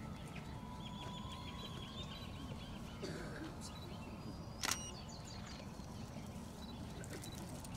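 Faint outdoor background noise with a low steady rumble and a few faint bird chirps, broken by a single sharp click a little past halfway.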